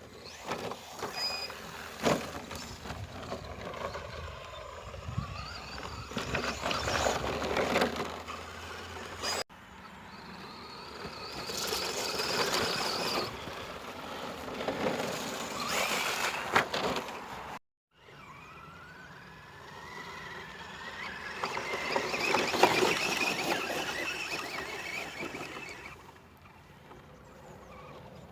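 Brushless electric motor of an ECX Torment short-course RC truck whining up and down with the throttle as it drives over rough ground, with tyre and gravel noise and a sharp knock about two seconds in. The sound breaks off abruptly twice, at edits.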